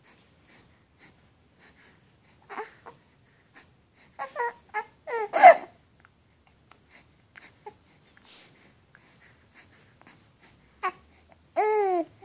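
Eight-week-old baby cooing in short, separate vocal sounds, the loudest about five and a half seconds in and a longer coo that rises and falls in pitch near the end.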